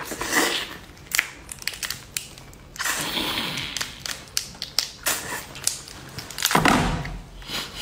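Loud wet slurping as the meat of a giant marinated prawn is sucked out of its shell, with clicks and crackles from the shell between the pulls. There are three long slurps, and the last, near the end, is the loudest.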